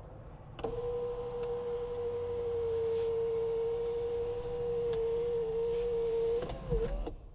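An electric motor in a 2012 Toyota Highlander Limited's cabin running one of the car's power-operated fittings: a steady whine for about six seconds that wavers and dips in pitch just before it stops, as the part reaches the end of its travel.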